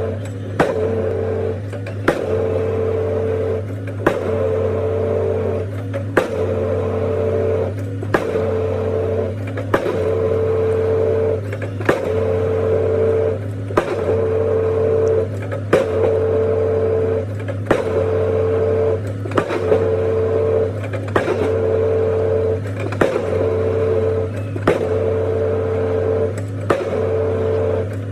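Excavator-mounted pile hammer striking a concrete pile with a sharp blow about every two seconds, over the steady running hum of the excavator's engine and hydraulics.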